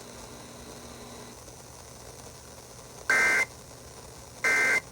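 Emergency Alert System end-of-message data bursts: two short, identical buzzy two-tone digital bursts about 1.3 seconds apart. They signal that the alert has ended. Before them there are about three seconds of faint steady hiss.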